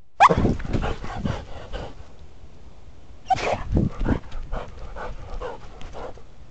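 A dog barking sharply twice, about three seconds apart. Each bark is followed by a rapid run of thumps and rustling as the dog runs, heard close up from a camera harness on its back.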